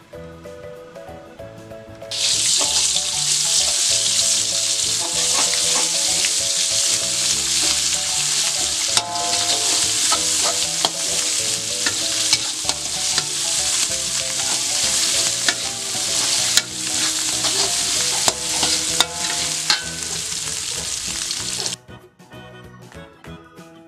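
Food frying in hot oil in a pan, a loud steady sizzle with scattered clicks of a utensil stirring. It starts abruptly about two seconds in and cuts off abruptly near the end, over background music.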